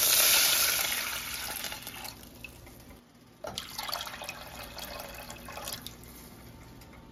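Water poured from a measuring cup into a small pot of hot oil and browned garlic. It starts suddenly and loud, then fades over a few seconds, and a second, softer pour follows about three and a half seconds in.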